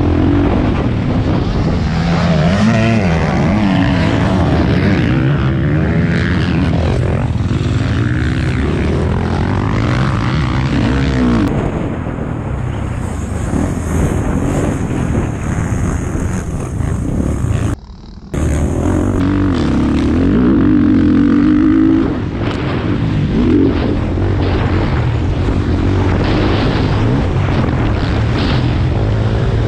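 Motocross bike engine revving hard and backing off again and again as it is ridden around the track, its pitch rising and falling through the gears. The sound drops away for a moment about two-thirds of the way through.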